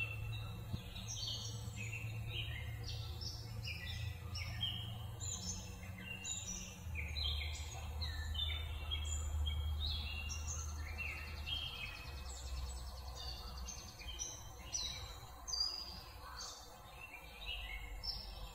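Many small birds chirping, with short overlapping calls all through, over a low steady hum.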